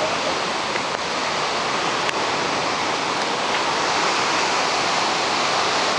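Storm wind blowing steadily, a dense, even rushing noise.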